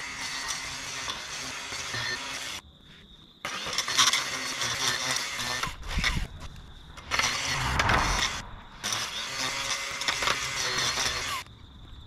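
Makita cordless brush cutter with a metal grass-cutting blade running and cutting through long grass, stopping short a few times.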